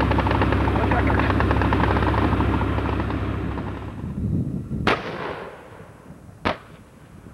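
Leopard tank's engine and tracks rumbling and clattering as it drives, fading out; then two sharp, distant gun reports about a second and a half apart, the first louder with a rolling echo.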